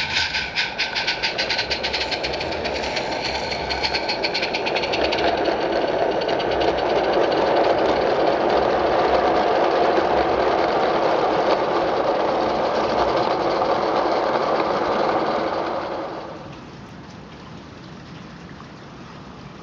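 16mm-scale live steam locomotive working a train of vans. Quick exhaust chuffs fade over the first few seconds into a steady rushing of locomotive and wagons running close by, which drops away suddenly near the end to a low hiss.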